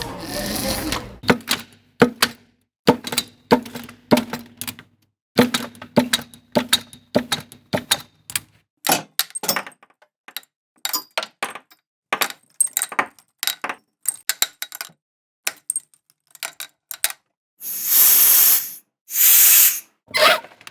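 A quick run of short, unrelated sound effects played one after another with silent gaps between: sharp clicks and knocks, brief scrapes and rattles, and two longer hissing rushes near the end.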